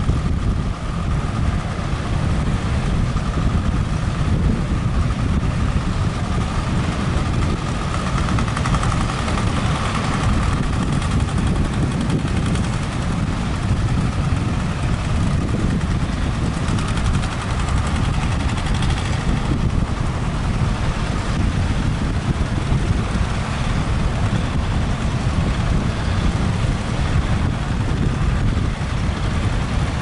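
Steady rumble of wind on the microphone and heavy surf breaking, with an outrigger fishing boat's engine running underneath as the boat pushes through the waves.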